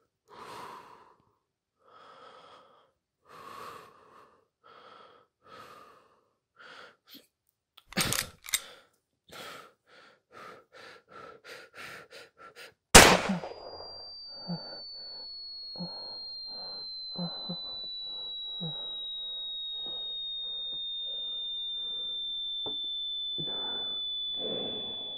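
Heavy breathing that comes faster and faster, with two sharp clicks about eight seconds in. About thirteen seconds in there is a single loud gunshot. A high whining tone follows, slowly falling in pitch and growing louder, while faint ragged breaths go on beneath it.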